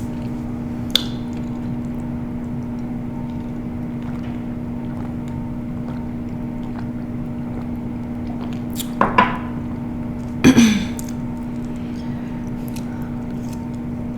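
Quiet mukbang eating sounds: a utensil clinking lightly on dishes while food is eaten, over a steady low hum. There is a sharp click about a second in and two short louder sounds about nine and ten and a half seconds in.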